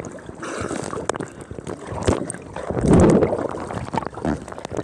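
Pool water splashing, sloshing and gurgling around a swimmer, heard from a camera at the waterline, with a louder splash about three seconds in.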